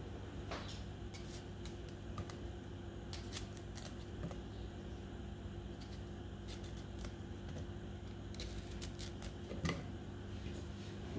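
Light, scattered knife clicks as small pieces are cut by hand and dropped into a wooden mortar, over a steady low hum.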